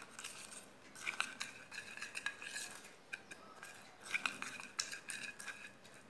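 Small spoon stirring and scraping in a small glass bowl, with irregular ringing clinks against the glass, as honey is mixed into used green tea leaves to make a face scrub.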